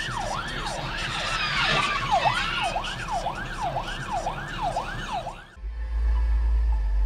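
Emergency vehicle siren on a fast wail, rising and falling about twice a second, which cuts off suddenly near the end. A steady low hum follows the cut.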